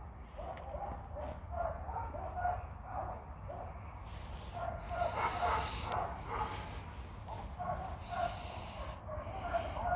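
Dogs barking and yipping in a quick series of short calls, about two a second.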